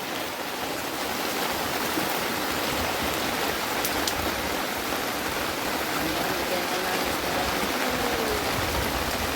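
Steady heavy rain with a rush of running water, an even hiss with no let-up.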